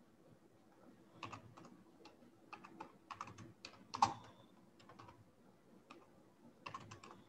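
Computer keyboard typing: irregular, quiet key presses in short runs, with one louder keystroke about four seconds in.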